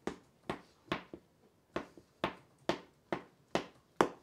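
Fork jabbing into bread dough in metal loaf pans to let trapped air escape, a sharp tap with each poke, about two a second, the last the loudest.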